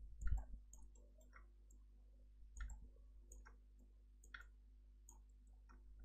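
Faint computer mouse clicks, short and irregular, roughly one or two a second, over a low steady hum.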